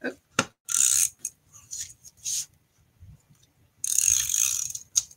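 Handheld tape glue runner drawn across paper in several short strokes, laying down adhesive, with the longest stroke about four seconds in.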